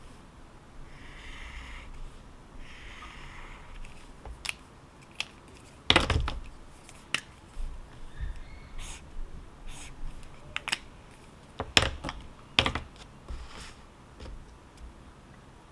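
Irregular keystrokes and clicks on a computer keyboard, a few scattered taps rather than fast typing, with the loudest clicks about six and twelve seconds in.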